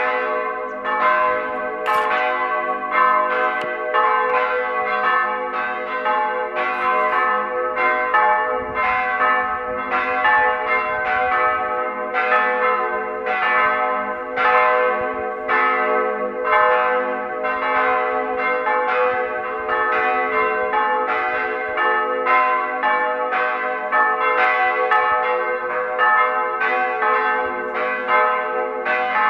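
Church bells ringing for a service, several bells swinging and striking over and over, a new strike about every second or less, each tone ringing on into the next.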